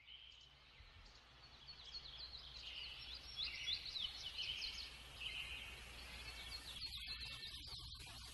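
Birds chirping: many short, quick, high chirps overlapping one another, fairly faint, over a low steady hum.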